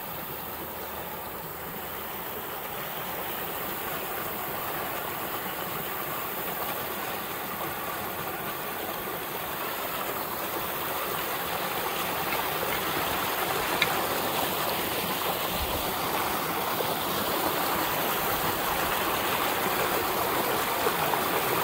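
Water rushing and churning down a narrow channel from a lake drain outlet, a steady rush that grows louder as the microphone nears it.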